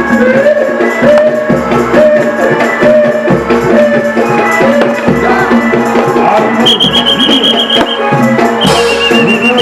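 Loud traditional folk music accompanying a can macanan tiger-dance performance: a low drum beat about every second and a half under a wavering melody and a steady drone, with a high rapid trill sounding twice in the second half.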